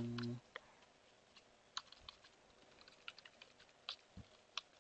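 Computer keyboard keys pressed one at a time at irregular intervals, faint and sparse.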